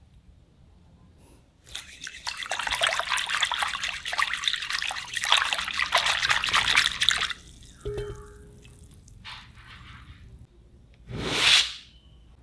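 Wire whisk beating a thin yeast, sugar and salt water mixture in a glass bowl: rapid splashing with quick clicks of the wires for about five seconds. A few light knocks follow, then a short loud swell of noise near the end.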